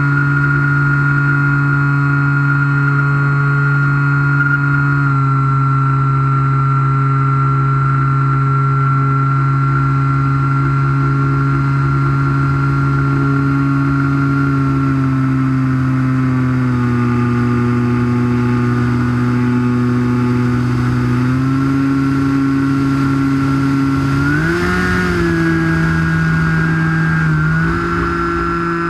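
Skywalker FPV plane's electric motor and propeller heard from the onboard camera: a steady whine of several tones over wind rush. The pitch drops a little over halfway through as the throttle is eased, then climbs back in steps near the end as power is added.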